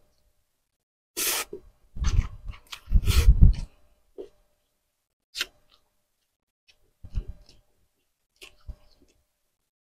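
Close-up eating sounds of grilled tuna jowl and rice eaten by hand: wet lip smacks, chewing and finger sucking. The loudest cluster of smacks comes from about one to three and a half seconds in, then single short smacks follow every second or so.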